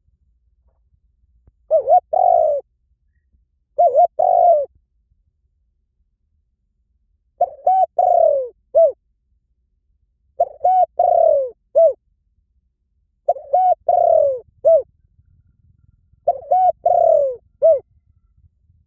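Spotted dove cooing: six phrases of low, swooping coos about three seconds apart, the later phrases ending in a short separate final note.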